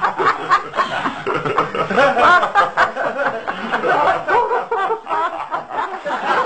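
Human laughter: a long run of quick, repeated chuckles with hardly a pause.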